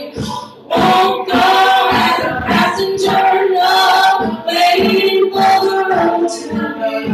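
A cappella ensemble singing a pop arrangement: a female lead voice over the group's sung backing parts, with no instruments.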